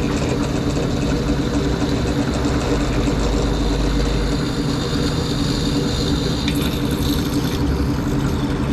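Benchtop drill press running steadily with a 1/8-inch bit drilling into the metal plate of a gas cap. A brighter, higher hiss comes in for about a second, starting about six and a half seconds in.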